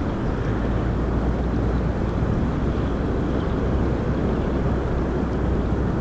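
Steady rushing noise with a low rumble from the Strokkur geyser's hot-spring vent, holding even throughout with no sudden burst.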